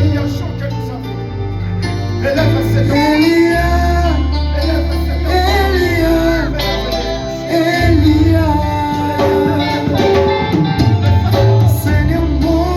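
Worship music: singing over a band with a steady bass line, the low notes held and changing every second or two.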